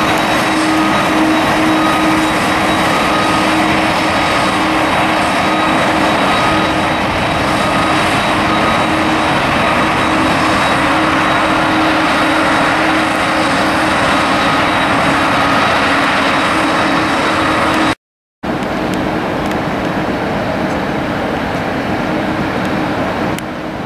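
Airbus A350's Rolls-Royce Trent XWB jet engines at taxi power: a steady rushing noise with a whine held on a few pitches. The sound cuts out for a moment about three-quarters of the way through, and a slightly quieter jet noise follows.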